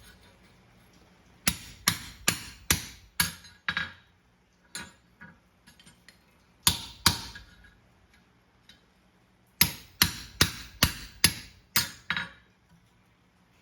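Hand hammer striking a pritchel through a horseshoe at black heat to open the nail holes: sharp metal-on-metal blows in three runs with short pauses between.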